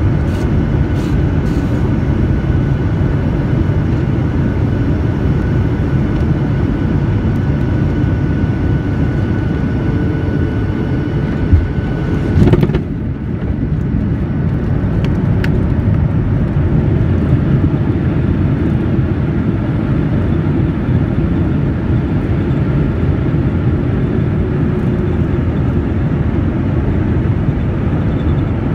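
Cabin noise of a jet airliner landing, heard from a window seat over the wing: steady engine and airflow rumble with a faint high whine. Around twelve seconds in, a jolt at touchdown cuts off the whine, and the steady rumble of the landing roll along the runway follows.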